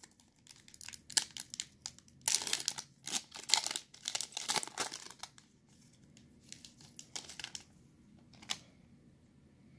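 Foil wrapper of a Panini Mosaic basketball card pack being torn open and crinkled by hand, with a run of loud crackling rustles over the first five seconds. After that come a few fainter rustles and a single click near the end.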